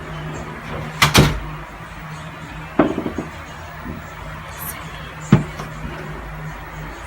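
Sharp knocks and clatter over a steady low hum: two loud knocks about a second in, a short rattle of taps near three seconds, and one more knock a little past five seconds.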